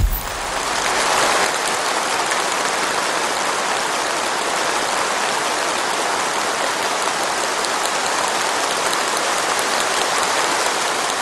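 Large seated audience applauding: dense, steady clapping from hundreds of hands that starts suddenly and keeps up without a break.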